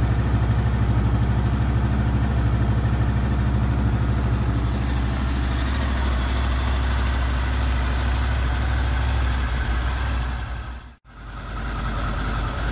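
Honda VFR800 VTEC V4 engine idling steadily on its first start after a cam chain replacement, warming up. The sound cuts out briefly about eleven seconds in, then the idle resumes.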